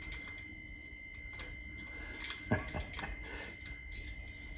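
Small metal clicks and taps of tiny washers being worked onto the idler rollers of a plasma table carriage by hand, with one louder knock about halfway through. A faint steady high tone runs underneath.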